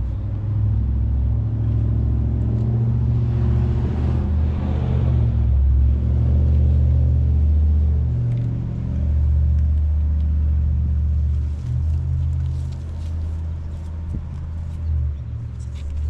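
A loud low rumble that swells and eases unevenly throughout, strongest in the first half.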